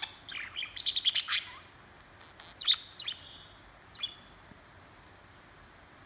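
Budgerigar chattering: a quick run of high warbling chirps in the first second and a half, then three short single chirps spaced out over the next few seconds.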